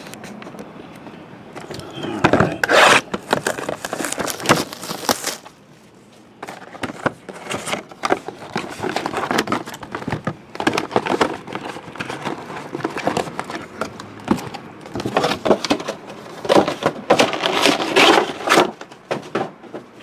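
Shrink-wrapped cardboard mini-boxes of trading cards being taken out of their display box and set down on a table: irregular rustling, scraping and knocks, with a brief lull about six seconds in.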